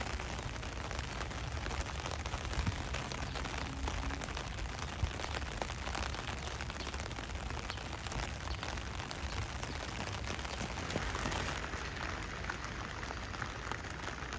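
Steady rain falling on pavement and station roofing, with scattered drop taps over a low rumble.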